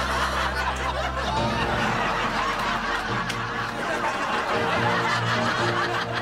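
A woman laughing over light background music with held bass notes.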